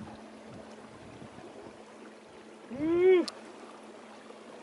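Water trickling and lapping at a moving boat's hull, with a faint steady hum. About three seconds in comes one short, loud, voice-like call that rises and then falls.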